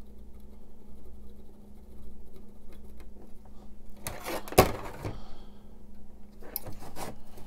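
Handling noise as a circuit board and solder braid are worked on a hardboard bench: faint ticks, then a louder rustling stretch about four seconds in with one sharp knock, and another near the end, over a steady low hum.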